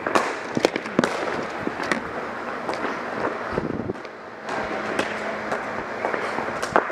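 Ball hockey play: many sharp, irregular clacks of sticks and ball striking sticks and boards, over a steady background din.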